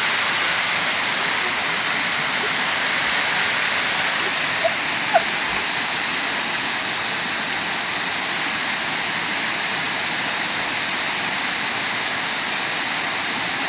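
Waterfall rushing steadily, a loud even hiss of falling water. Two faint short chirps cut through about five seconds in.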